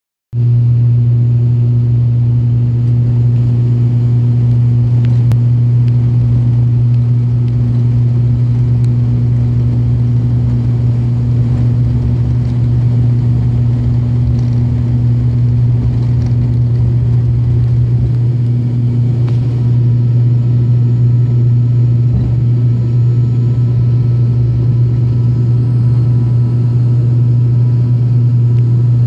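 Turboprop engine and propeller of an Azul airliner at takeoff power, heard from inside the cabin next to the engine: a loud, steady low propeller drone through the takeoff roll and liftoff.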